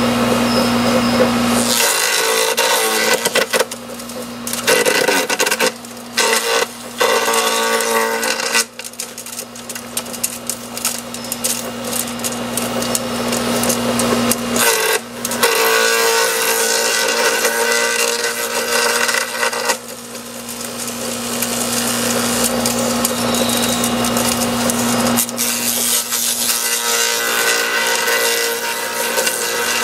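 Kawashima GS2500 electric garden shredder running: a steady motor hum at first, then loud grinding and crackling as branches are fed in and chewed up, in several spells with short lulls between.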